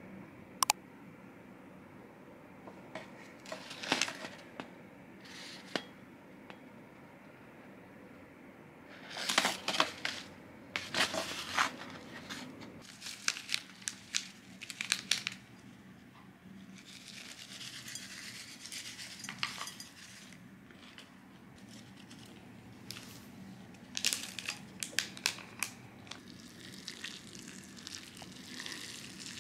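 Small foil sachets being handled, torn open and crinkled by hand, in several short bursts of crackling. Near the end, a stream of water is poured over rice and toppings in a ceramic bowl.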